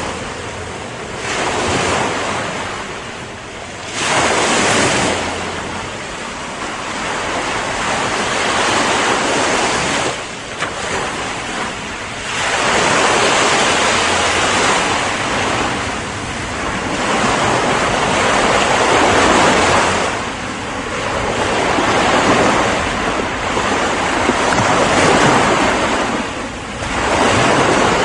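Ocean waves breaking and washing on the shore, the surf swelling and easing every few seconds.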